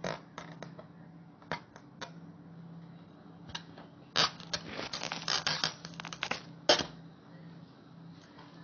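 Scattered short clicks and rubbery rustles of a latex balloon being handled and settling against the rim of a glass jar. Most come in a dense cluster about four to six seconds in, with one sharp click just before seven seconds, over a faint steady hum.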